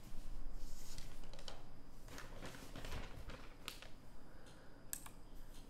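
Faint, scattered clicks and taps over a low hum.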